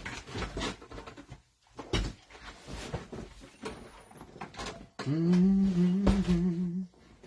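Plastic cello-pack wrappers crinkling and tearing as trading-card packs are opened, with light scattered crackles and clicks. About five seconds in, a louder low hummed or played tune of held notes comes in for about two seconds.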